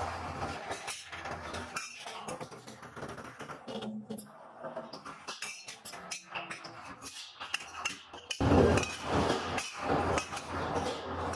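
Metal clinks and knocks of a steel cylinder foot ring being handled against the steel rolls of a ring-forming machine, over a low machine hum that grows louder about eight seconds in.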